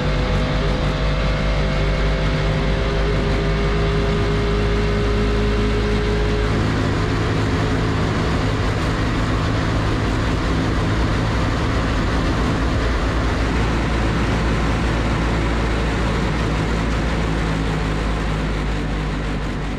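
Land speed race car running at speed on the salt, heard from inside the cockpit: a loud, steady mix of engine and wind noise. A few faint tones stand out in the first six seconds or so, and the sound eases off slightly near the end.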